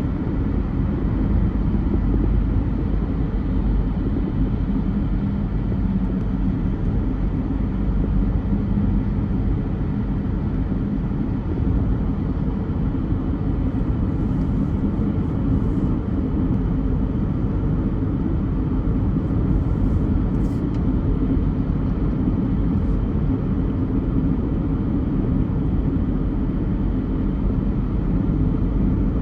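A car driving in traffic: a steady low rumble of engine and road noise.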